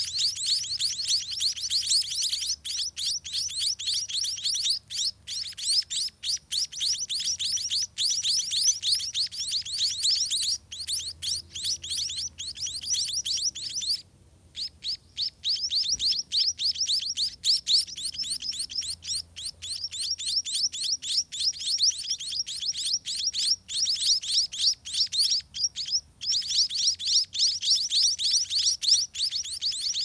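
Scaly-breasted munia (spotted munia) nestlings begging to be fed: a dense, rapid stream of high-pitched chirps, with a short break about halfway through.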